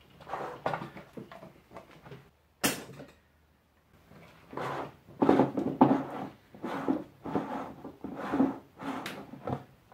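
Plastic dump-valve assembly of a Fermzilla fermenter being unscrewed by hand from the vessel's neck: irregular rubbing and scraping of plastic on plastic, with a sharp click a little under three seconds in and a denser run of scraping in the second half.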